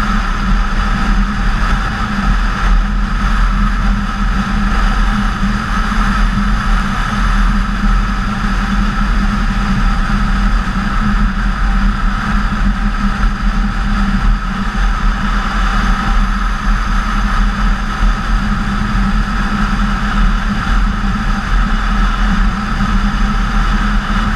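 BMW K1600GTL motorcycle's inline-six engine running at a steady cruise, mixed with wind and road noise. The sound stays even, with no revving up or down.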